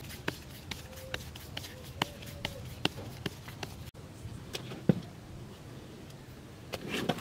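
Hands rounding balls of bread dough and setting them down on a floured metal tray: a string of light taps and pats, about two or three a second, with one louder knock about two-thirds of the way through.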